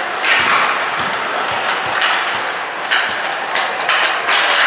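Ice hockey play on the rink: skate blades scraping the ice in several swells of hiss, with scattered sharp clacks of sticks and puck.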